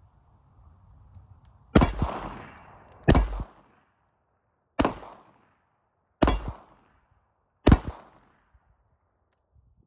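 Five shots of .38 Special fired one at a time from a Smith & Wesson Airlight J-frame revolver, spaced about one to one and a half seconds apart, each dying away quickly. These five shots empty the five-round cylinder.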